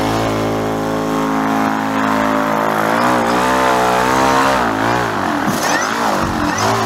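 Mini electric airboat's electric motor and propeller running under power, pushing the hull over snow. The pitch holds steady for about three seconds, then swings up and down repeatedly as the throttle is worked.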